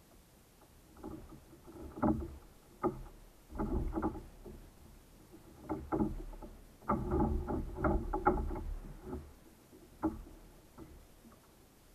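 Gear being handled aboard a sit-on-top kayak: irregular knocks, clunks and rustling against the hull, busiest a little past the middle.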